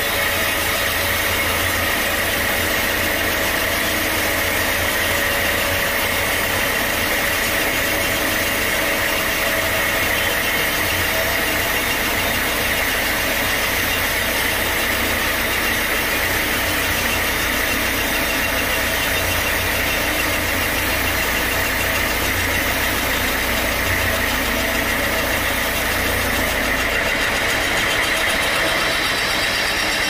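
Sawmill machinery running steadily: an even engine drone with a strong low hum.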